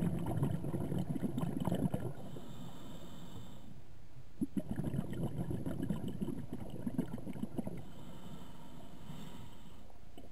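Scuba diver's breathing heard underwater: two spells of bubbling, crackling exhalation through the regulator, the first for about two seconds and the second from about four to seven and a half seconds in, with quieter, hissing inhalations between them.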